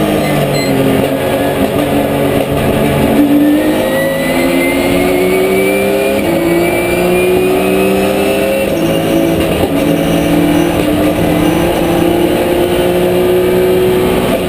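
Porsche 997 GT3 Cup's flat-six engine heard loud inside the race car's cabin, pulling hard under full throttle with the pitch climbing slowly. The pitch drops sharply with an upshift about six seconds in and again about nine seconds in, then climbs again.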